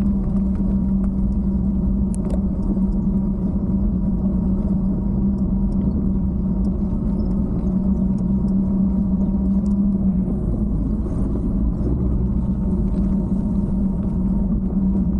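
Steady rumble of wind buffeting a handlebar-mounted camera and bicycle tyres rolling on asphalt, with a steady low hum that drops away briefly about ten seconds in.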